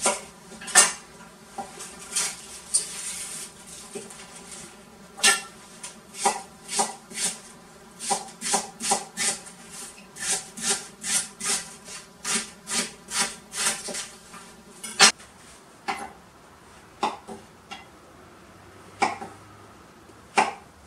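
Kitchen knife chopping a Japanese long green onion on a wooden cutting board: sharp knife taps on the board, about two a second for a stretch, with one loud strike about fifteen seconds in. After it come slower, sparser cuts through a shiitake mushroom. A steady buzzing hum runs underneath and stops about fifteen seconds in.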